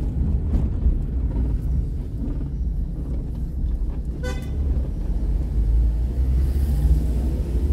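Steady low rumble of a car's engine and tyres heard from inside the cabin, with one short horn beep about four seconds in.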